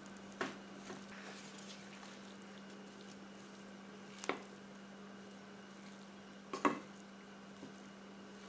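A few short clicks and knocks of a cooking spoon against the pot while fried rice is stirred and mixed, spaced a couple of seconds apart over a steady low hum.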